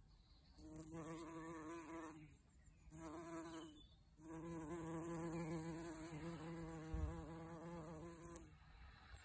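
Bumblebee buzzing in flight close to the microphone, a low droning hum that comes and goes in several stretches as it moves between red dead-nettle flowers, with a brief low thump about seven seconds in.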